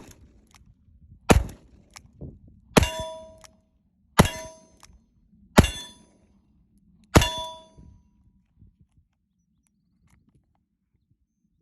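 Smith & Wesson R8 .357 Magnum revolver firing five shots, roughly one and a half seconds apart, each followed by a ringing metallic clang. It goes quiet for the last few seconds.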